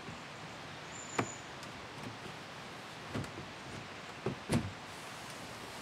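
Plastic resin shed panel knocking and clicking as its tongue is slotted into the groove of the upright, a few separate knocks with the loudest about four and a half seconds in.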